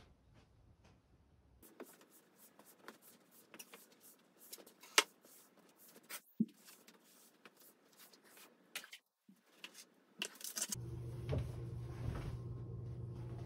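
Broom bristles sweeping a hard floor: light, scratchy strokes and ticks with a few sharper taps. Near the end a steady low hum comes in suddenly.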